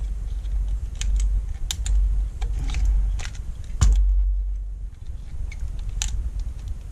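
Irregular small clicks and taps as fingers press a self-adhesive LED backlight strip down along the metal reflector rail of an LCD panel, the sharpest a little under four seconds in, over a steady low rumble.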